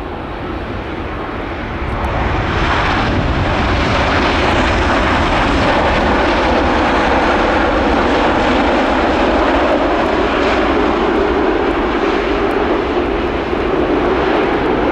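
Boeing 787-9's Rolls-Royce Trent 1000 jet engines on the landing roll on a wet runway, over the hiss of tyre spray. The engine noise swells about two seconds in and then holds loud, typical of reverse thrust being applied after touchdown.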